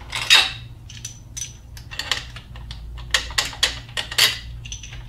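Steel sockets and a socket extension clinking and tapping together as they are handled at the engine, a loud clink about a third of a second in and a quick run of clicks toward the end, some with a short metallic ring.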